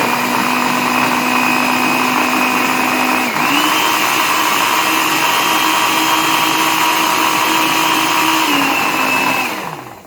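Mondial Easy Power 550 W blender motor running at a steady whine. About three seconds in the pitch steps up as it goes to its second, faster speed. Near the end it is switched off and spins down to a stop.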